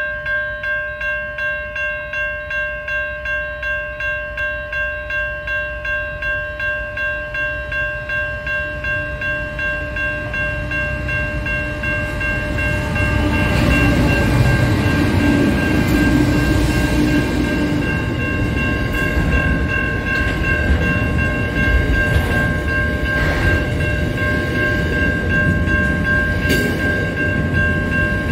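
An electronic crossing warning bell dings about twice a second as a Pacific National freight train approaches. From about twelve seconds in, the loud rumble of the lead NR-class diesel-electric locomotives passing close by takes over. Double-stacked container wagons then roll past with occasional wheel clunks, the bell still ringing.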